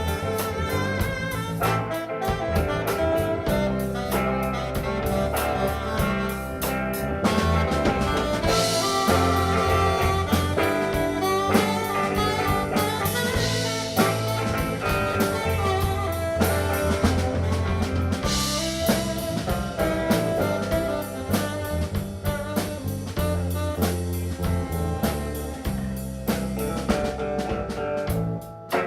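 Live band playing an instrumental break of a jazz-blues style song: drum kit keeping a steady beat under bass and melody instruments, with the top end swelling bright three times.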